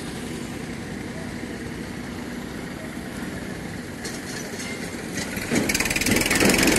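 A motor vehicle's engine running, a steady hum that grows much louder from about five and a half seconds in, peaking near the end as it comes close.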